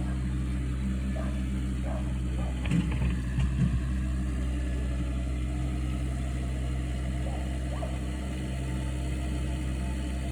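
Engine of the stump-removal machine running at a steady idle, with a few low knocks about three seconds in.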